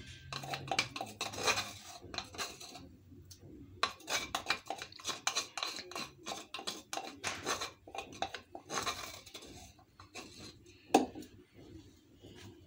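Kitchen utensils and dishes clattering: a run of short, irregular knocks and clinks, with one louder knock near the end.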